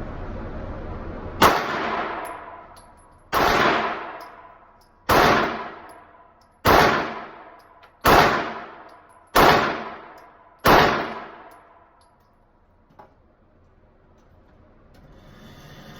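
Seven gunshots fired at a steady pace, about one every one and a half seconds, each followed by a long echoing decay. A faint click comes a couple of seconds after the last shot.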